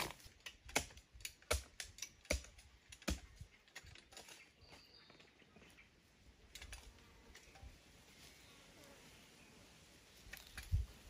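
Dry twigs and undergrowth crackling and snapping as someone moves and works among them, in a quick run of sharp snaps over the first few seconds. It then drops to faint rustling, with a couple more snaps and a low thud near the end.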